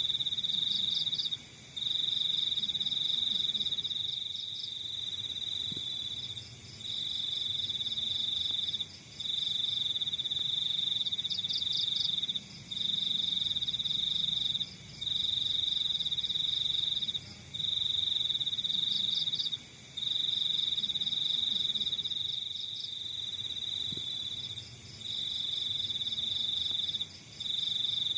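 Cricket trilling in long unbroken trills of about two seconds each, separated by short pauses, with brief higher chirps from another insect now and then.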